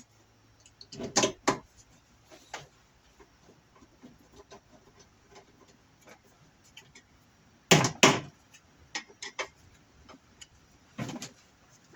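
Scattered clicks and knocks of hard plastic pressure-washer parts being handled and fitted together, the loudest a pair of knocks about eight seconds in.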